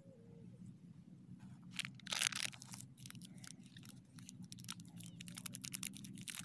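A candy wrapper crinkling and tearing as it is picked open and peeled by hand: dense crackles that start about a second and a half in, are loudest around two seconds in, and keep on in quick small clicks.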